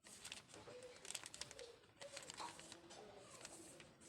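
Near silence in a small room: faint scattered clicks and light rustling, with faint wavering voice-like sounds in the background.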